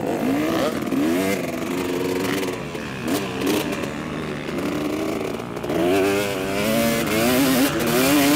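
Motocross bike engine revving up and down under the rider's throttle, its pitch climbing and dropping again every second or so.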